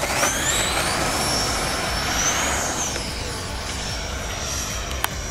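90mm electric ducted fan of an RC sport jet spooling up to full throttle for takeoff: a whine that rises sharply in pitch, then holds high and steady as the jet climbs out. A brief click near the end.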